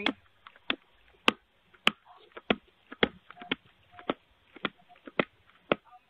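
Sharp taps at the front door right by the doorbell camera, about two a second and some ten in all, from a visitor impatient for the door to be opened.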